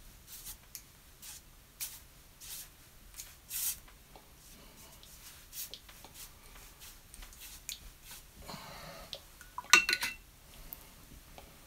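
Watercolour brush swishing across paper in short horizontal strokes. Near the end, a few sharp clinks as the brush knocks against the mixing palette.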